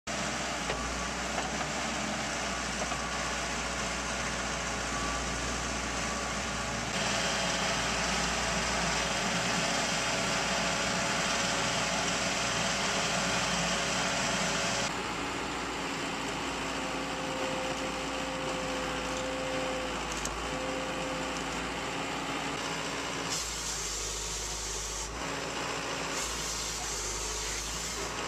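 Diesel engine of a yellow Bell wheeled logging machine running steadily under work, with a steady higher tone, likely hydraulics, swelling over it for a few seconds midway. The sound jumps abruptly in loudness and character several times.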